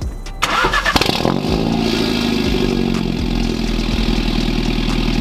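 Mini Cooper engine started: a short crank and a click in the first second, then the engine catches, revs up a little and settles into a steady idle heard at the tailpipes.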